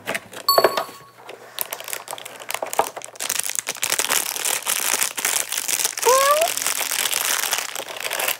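Paper and packaging crinkling and rustling as a box is unpacked, dense and steady through the second half. A short chime rings about half a second in, and a brief rising tone sounds about six seconds in.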